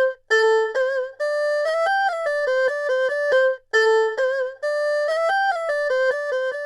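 Film background-score cue: a solo melody of short, quick notes on a single bright lead instrument, one phrase played twice.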